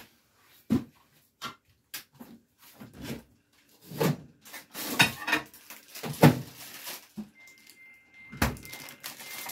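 Handling noises at a countertop microwave oven as a plate of egg rolls is put in: scattered knocks and clatter, with a sharp thump about 8.5 seconds in. A thin, high electronic beeping sounds in broken dashes over the last two seconds.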